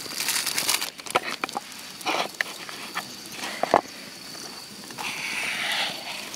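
Food-preparation handling noise: soft rustling with a few light clicks and knocks, the sharpest a little past halfway, as a sheet of deep-fried tofu is handled and cut with a knife.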